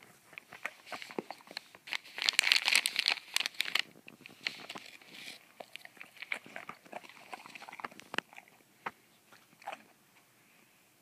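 Dog crunching and chewing food it has just been given, a dense run of crisp crunches about two to four seconds in, then scattered, fainter crunches that thin out.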